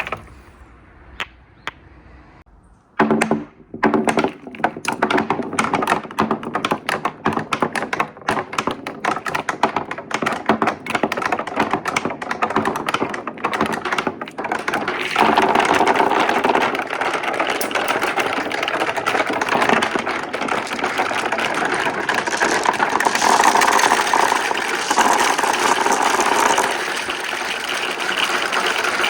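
Glass marbles rolling and clacking down a wooden marble run with right-angle turns: a few scattered clicks, then from about three seconds a dense rapid clatter that thickens into a continuous rolling rumble about halfway through.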